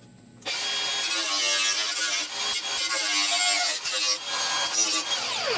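Handheld angle grinder starting about half a second in and grinding the steel dash panel of a 1966 Ford F100, a steady grinding noise over the motor's high whine. Near the end the grinder comes off the metal and winds down, its whine falling in pitch.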